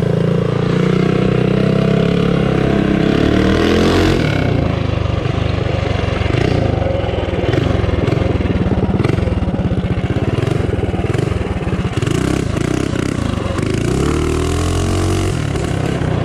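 The Baja Warrior mini bike's Tillotson 212 single-cylinder engine revs up hard under acceleration over the first few seconds. It then runs at changing throttle, rising and falling, and revs up again near the end.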